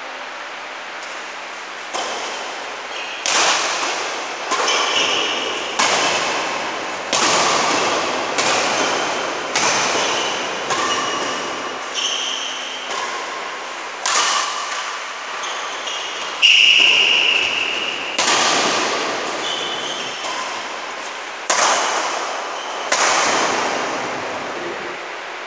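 A long badminton rally: rackets striking the shuttlecock about every second and a half, some fifteen sharp hits that ring and echo in a large hall. A brief squeak comes with the loudest hit about two-thirds of the way through.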